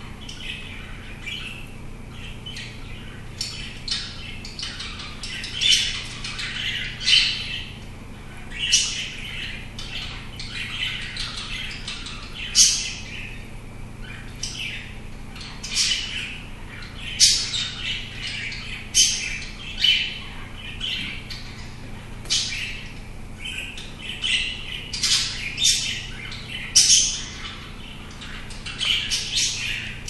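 Cockatiel giving short squawks and chirps every second or two while it nips at a plastic water bottle, its beak clicking and crinkling the plastic.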